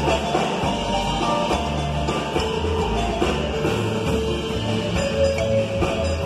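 Live marimba orquesta playing: a marimba struck by two mallet players over electric bass and a drum kit, with a steady beat.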